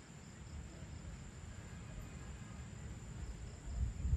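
Crickets trilling in a steady, high-pitched chorus, over an uneven low rumble.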